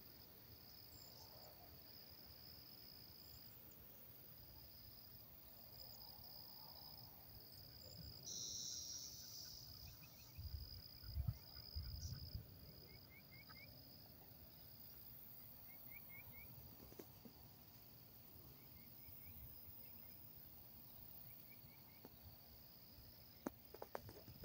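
Faint, steady trilling of field insects at one high pitch, broken by short gaps. A few soft low thumps come about halfway through.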